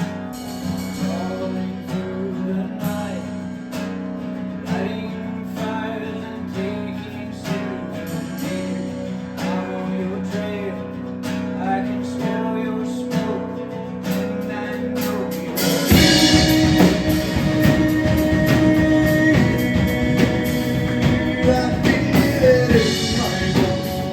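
Song with strummed acoustic guitar and a voice over it; about two-thirds of the way in the full band comes in, drums included, and the music gets louder.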